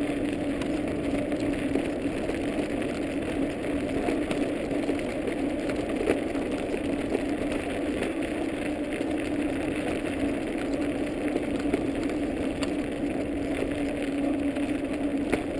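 Dog scooter's wheels rolling steadily over a snow-dusted trail, a constant rumble with a steady low hum.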